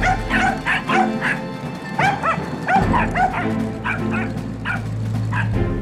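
A dog barking rapidly and repeatedly, about three barks a second with a short break about one and a half seconds in, over background music.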